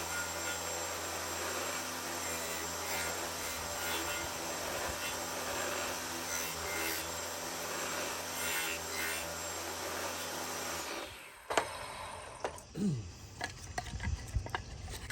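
Saw with a wobble dado blade running and hogging out tongues on the ends of wooden door rails and stiles. The steady machine noise stops abruptly about eleven seconds in, and several sharp knocks of wooden pieces being handled follow.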